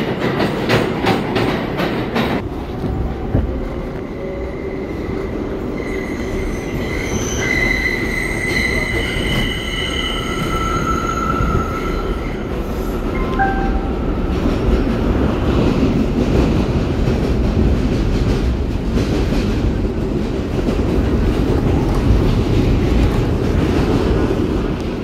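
New York City subway express train: wheels clattering rapidly as it pulls into the station for the first couple of seconds, then a steady low rumble of the moving car, with high squealing tones from about six to twelve seconds in.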